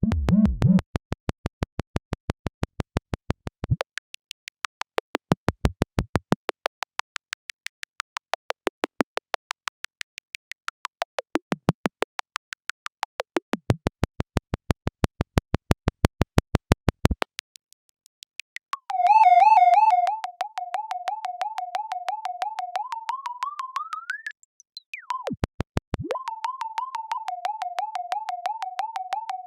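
Synthesized robot sound effects: a fast, even train of electronic clicks, about five a second, for most of the first half. Then a warbling electronic tone that wobbles rapidly, rises in pitch, breaks off briefly and comes back warbling.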